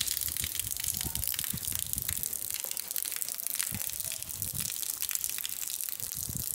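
Heavy rain falling steadily, a dense hiss with fine pattering, with low irregular thumps underneath.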